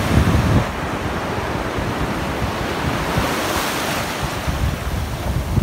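Ocean surf washing in at the shoreline, with wind buffeting the microphone in gusts.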